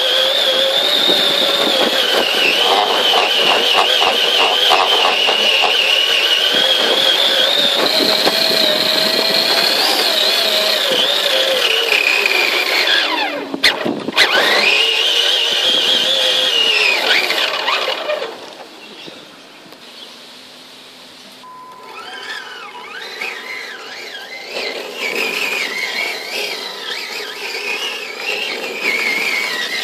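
TXT-1 RC monster truck's electric motors and gearboxes whining, the pitch rising and falling with the throttle. The whine briefly drops out and comes back about halfway through, goes much quieter for a few seconds, then picks up again in short spurts.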